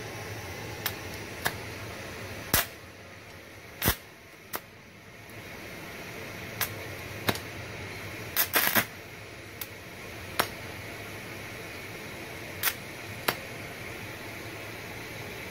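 TIG welding arc on steel from a small inverter MIG/MMA welder run as a scratch-start TIG: a steady hiss with a faint high hum, broken by sharp pops and clicks every second or so, with a quieter stretch about three seconds in.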